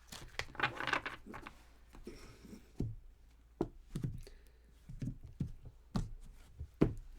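Irregular light taps and knocks with a soft rustle, as tarot cards are handled and laid down on a table.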